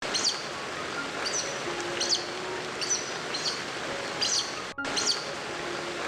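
A small bird chirping: short, high, falling chirps repeated about every three-quarters of a second over a steady background hiss, with a brief break just before five seconds in.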